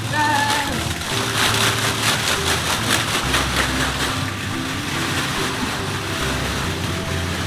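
Hollow plastic ball-pit balls pouring from a mesh bag through a car's roof opening, tumbling and clattering onto the seats in a dense rush of clicks, heaviest between about one and three seconds in.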